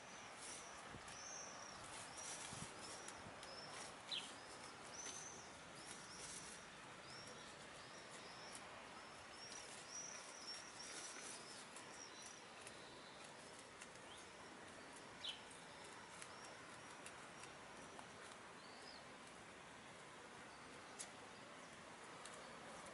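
Faint, high, short chirps of small songbirds repeated over and over, thinning out after the first half, with a few soft scattered clicks over quiet outdoor background.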